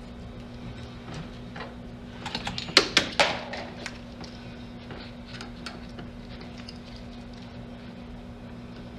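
A quick cluster of sharp clicks and knocks about two to three seconds in, the loudest two close together, then a few faint ticks, from hand work on the headliner in a small cab, over a steady low hum.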